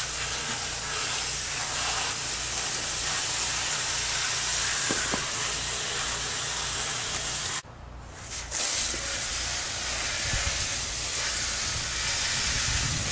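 Water from a garden-hose-fed undercarriage washer spraying steadily against the underside of a vehicle, a continuous hiss that breaks off for about a second past the middle and then resumes.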